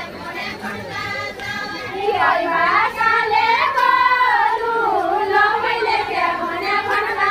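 A group of women singing a deuda folk song in high voices, the sung melody growing louder about two seconds in.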